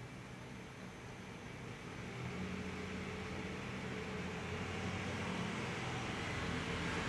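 A steady low mechanical hum with hiss, growing louder from about two seconds in.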